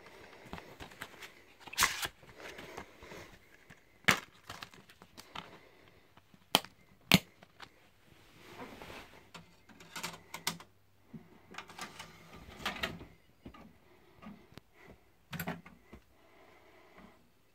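Plastic DVD case being handled and opened and the disc taken out: a series of sharp plastic clicks and snaps with softer scuffing and rustling between them.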